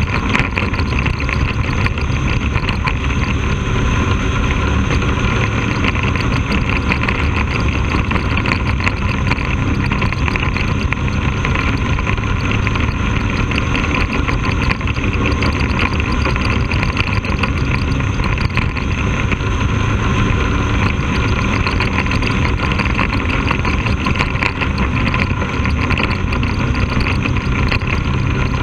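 Bandolero race car's Briggs & Stratton V-twin engine running steadily at speed, heard from an onboard camera on the car.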